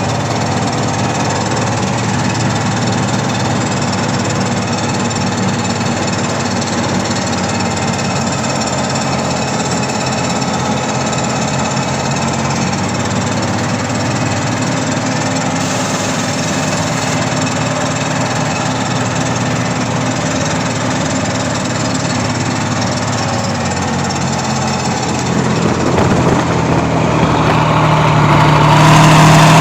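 Kirovets K-701 tractor's diesel engine running steadily, then revving up louder near the end.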